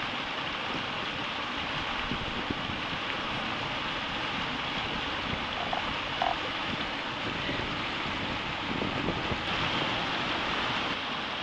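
River water rushing steadily through a shallow rapid.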